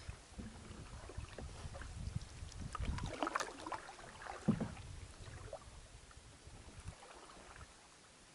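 A canoe being paddled: paddle splashes and water sloshing against the hull, loudest about three and four and a half seconds in, over a low rumble that dies away about halfway through.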